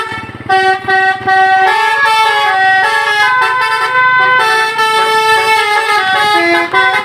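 Bus 'telolet' horn, a set of musical air horns, playing a tune of short stepped notes sounded as chords, with one long held chord in the middle.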